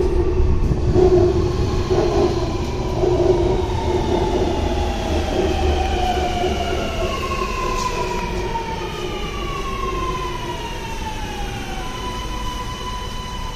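Sydney Metro Alstom Metropolis driverless train pulling into an underground platform and braking: a low rumble, then the traction motors' whine falling in pitch as it slows, levelling off into a steady tone as the train comes to a stop near the end.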